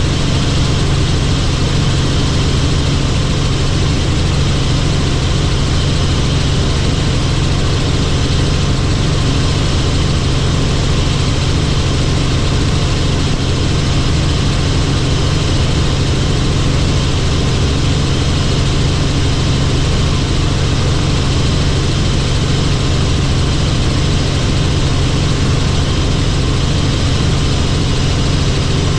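Helicopter in flight: a steady, loud drone of engine and rotors, a strong low hum with a constant hiss above it and no change in pitch.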